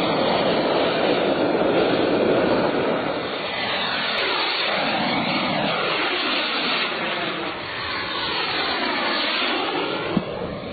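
Radio-controlled model jet plane flying past, a steady loud jet rush whose tone sweeps up and down as it passes over. There is a brief knock near the end.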